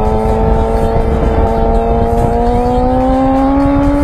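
Suzuki GSX-R1000 inline-four engine under throttle, its pitch climbing steadily as the bike accelerates and rising faster about three seconds in, with wind rushing over the microphone.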